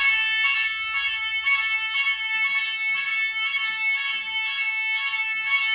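Nugelec addressable fire alarm sounding in a test: a loud, continuous electronic tone with a second tone cutting in and out about twice a second.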